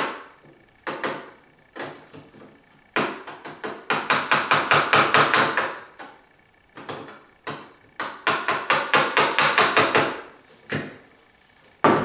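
Claw hammer tapping a Ryobi door latch mortising tool into the edge of a wooden door, chipping out the latch mortise. A few single taps, then a quick run of rapid taps for about three seconds, a short pause, and another quick run, followed by a few more single taps.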